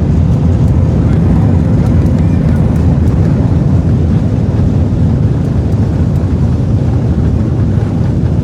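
Loud, steady low rumble inside an airliner cabin during the landing rollout just after touchdown.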